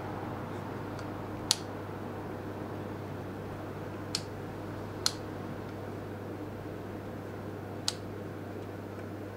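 Plastic rotary dial switch of an OHM TDX-200 digital multimeter clicking into position four times, spaced a second or more apart, over a steady low hum.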